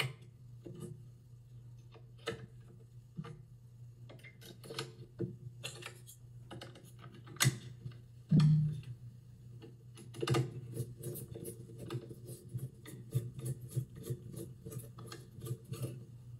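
Irregular small plastic clicks, taps and rubs as AAA batteries are pressed into a handheld outlet tester's battery compartment and its plastic cover is fitted, then a denser run of clicks as a small Phillips screwdriver works the cover screw. A faint steady low hum runs underneath.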